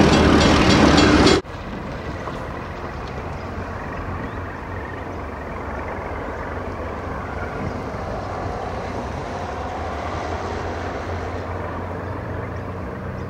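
Train of grain hopper wagons hauled by NSW 48 class diesel-electric locomotives: loud close passing noise of engines and wheels, cut off suddenly about a second and a half in, then the quieter steady rumble of the wagons rolling along the track.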